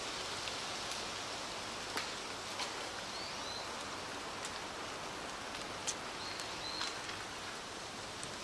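Steady outdoor hiss, with a few short high chirps and scattered light ticks.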